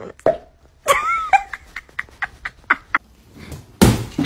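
A cat gnawing on an orange plastic tube, its bites making a run of sharp clicks, with a short wavering cry about a second in. Near the end comes a loud rushing burst of noise.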